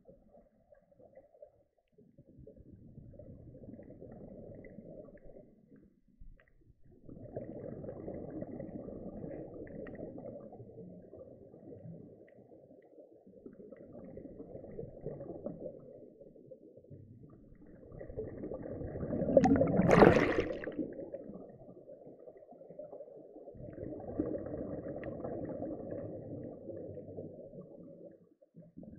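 Scuba diver's regulator exhalations heard through an underwater camera housing: five long, dull bubbling rushes a few seconds apart, with quiet gaps for the inhales between them. The fourth, about two-thirds of the way through, is the loudest.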